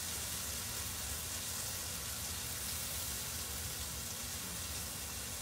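Sliced mushrooms sizzling steadily in oil in a frying pan on a gas burner: an even, soft hiss over a low hum.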